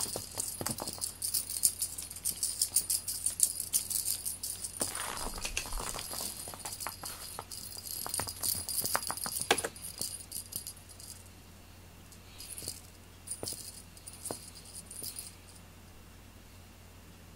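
Small metal bell on a feather wand cat toy jingling as the toy is flicked and dragged over a foam floor mat, with light taps. The jingling is continuous for about the first ten seconds, then comes in three short bursts.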